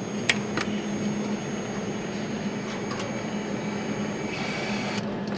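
Factory assembly-line ambience: a steady mechanical hum with a few sharp metallic clicks, the loudest shortly after the start, and a faint high whine that stops about four seconds in.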